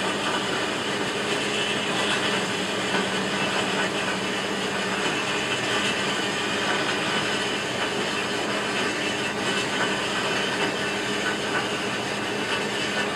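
Burner of a small metal-melting furnace running with a steady rushing noise and a constant low hum.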